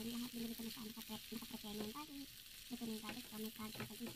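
Shell-on shrimp sizzling in a hot frying pan as a wooden spatula stirs and turns them: a steady frying hiss with a few short scrapes. Under it, a low pitched sound comes in short repeated pulses.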